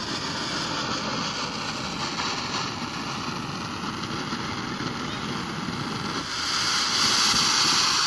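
Ground fountain firework hissing steadily as it sprays sparks, turning louder and sharper about six seconds in as the spray shoots higher.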